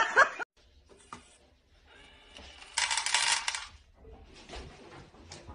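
A brief metallic rattle lasting under a second, about three seconds in, preceded by a faint click.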